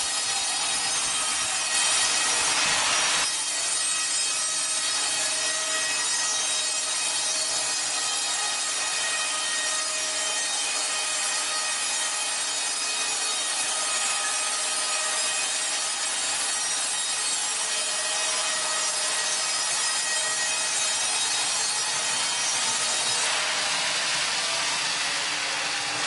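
Wood being sawn: a continuous, steady sawing noise with a thin, even whine over it. It gets louder for about a second near the start.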